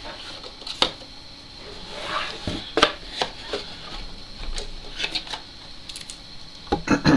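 Cardboard packaging and a plastic power adapter being handled: scattered clicks, taps and light rustles as a box insert is lifted out and the adapter and leaflets are taken from the box, with a quick cluster of knocks near the end.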